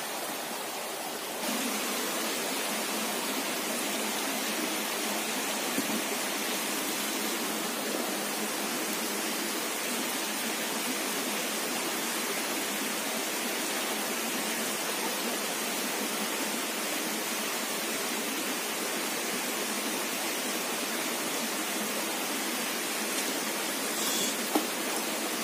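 Shallow stream water running over rocks, a steady even rush, with a faint click or two.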